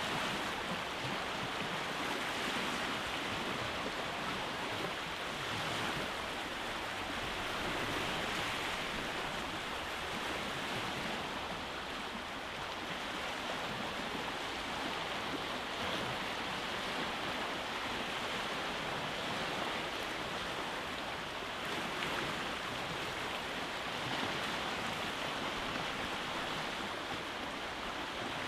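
Sea waves breaking and washing over a rocky shore: a continuous rushing surf that swells and eases every few seconds.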